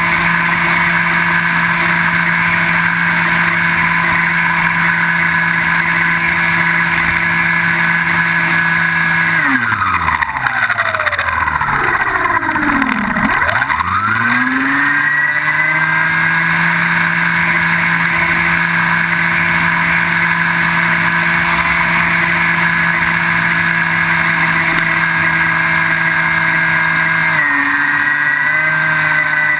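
Electric motor and propeller of a Skywalker 1680 foam wing, heard from on board, running at a steady cruising pitch. About nine seconds in the throttle comes back and the pitch falls away to almost nothing. It climbs back up to a steady tone a few seconds later, then steps down slightly near the end.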